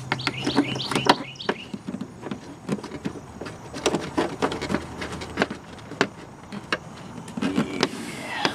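Irregular sharp clicks and knocks of plastic trim and screws being handled while the cabin air filter cover is refitted, with birds chirping in the background.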